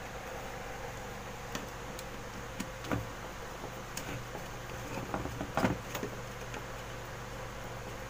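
Small clicks and knocks of a screwdriver and wire ends being worked into a fire-alarm call point's terminal screws, a handful of separate taps with the loudest cluster a little past halfway, over a steady low hum.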